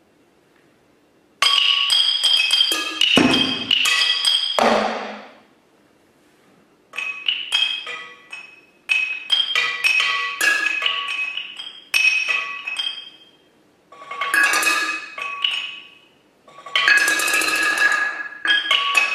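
Contemporary solo percussion: small percussion instruments and glass bottles on a table struck with mallets in fast, irregular flurries, each hit ringing briefly and high. The playing comes in bursts with short pauses between them, and starts after about a second and a half of near silence.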